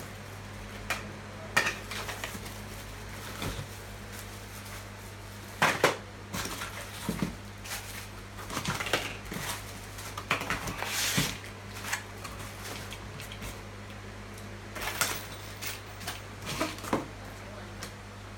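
Irregular clatter, clicks and knocks of hard objects being handled and set down, a few at a time with pauses between, over a steady low hum.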